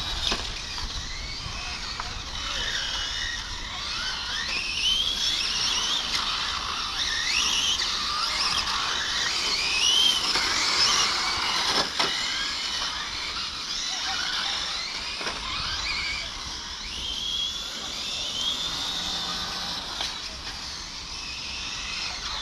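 Several 1/8-scale electric GT RC cars racing past. Their motors whine, rising and falling in pitch as they accelerate and brake, and there is a sharp click about twelve seconds in.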